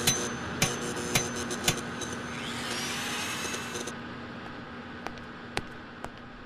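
Cartoon sound effects: a run of sharp knocks about twice a second, then a rising whistle-like glide with a hiss that cuts off suddenly about four seconds in, over a steady hum; a few more knocks come near the end.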